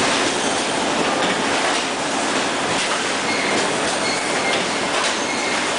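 Pneumatic multi-point steel-mesh welding machine running: a steady noisy din with a few scattered clacks.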